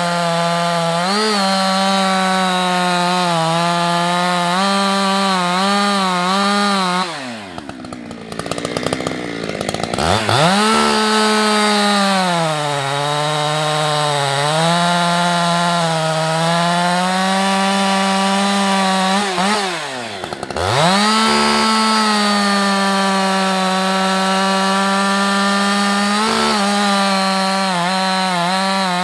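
Husqvarna 365 X-Torq two-stroke chainsaw running at full throttle while cutting beech, its pitch sagging and wavering as the chain bites into the wood. The engine drops back toward idle about seven seconds in, revs back up a few seconds later, dips briefly again about twenty seconds in, and falls off once more at the very end.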